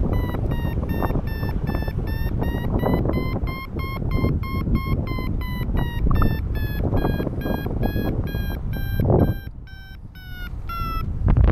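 Paragliding variometer beeping rapidly, about four short beeps a second, its pitch rising and falling with the climb rate: the climb tone of a glider gaining height in lift. Wind rushes on the microphone beneath the beeps, and near the end the beeping stops as the wind noise grows louder.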